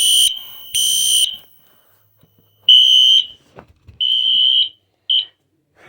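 Wheelock NS fire alarm horn sounding a run of short, loud, high-pitched blasts, roughly one a second with a longer gap after the second. The last blast is cut short just after five seconds in, and the horn goes quiet.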